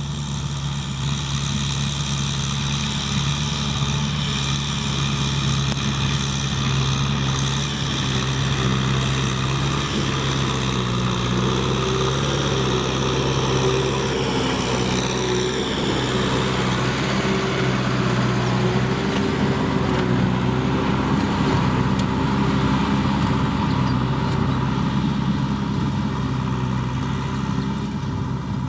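Kubota M6040SU tractor's diesel engine running steadily under work. About halfway through, a high whine falls in pitch.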